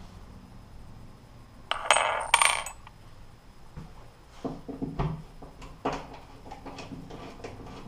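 Small metal hardware, a molly anchor and its screw, clinking and rattling together in the hand for about a second, followed by a few light clicks as the parts are handled.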